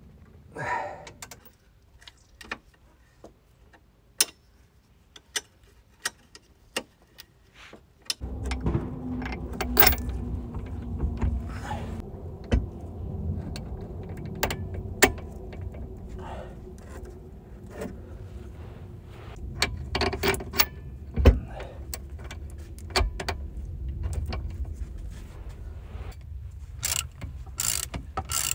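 Metal hand tools clinking and clicking against the bolts and steel of the car's underside as rear suspension bolts are worked on: scattered sharp knocks and jingles. About eight seconds in, a steady low rumble sets in beneath the clinks.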